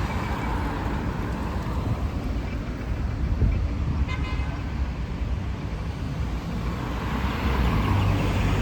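Road traffic on a city street, a steady rumble of passing cars, with a short high horn toot about four seconds in.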